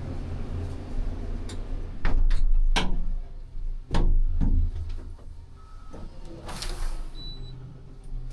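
Ship crane machinery running with a low, steady hum, broken by several heavy clanks and knocks; the loudest come about two and four seconds in, with a brief hiss near the end.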